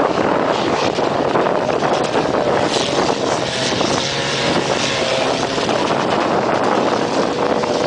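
Quad bike engine running nearby under heavy wind buffeting on the microphone; the engine's drone comes through more clearly from about three seconds in.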